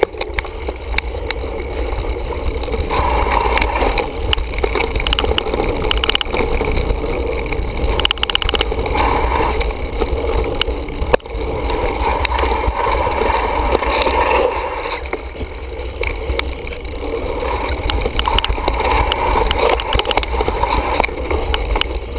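Mountain bike descending a dirt singletrack: steady wind rumble on a handlebar-mounted action camera and tyres rolling over dirt and leaves, with scattered sharp rattles and knocks from the bike over rough ground.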